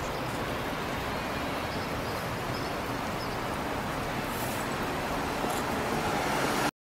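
Steady city street traffic noise: a general hum of passing cars, cutting off abruptly near the end.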